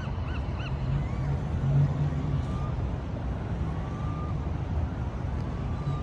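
A quick run of repeated honking bird calls, about three a second, that stops under a second in. A few faint thin whistles follow, over a steady low rumble of background noise.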